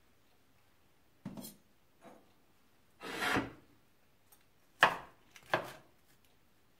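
Large kitchen knife cutting strips of green pepper on a plastic cutting board. A few separate cuts knock on the board, with a brief scrape about three seconds in. The sharpest, loudest cut comes near five seconds.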